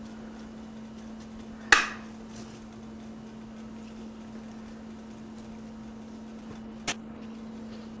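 Metal kitchen tongs clinking against a glass baking dish while cabbage leaves are laid in: one sharp clink about two seconds in and a fainter one near the end, over a steady low hum.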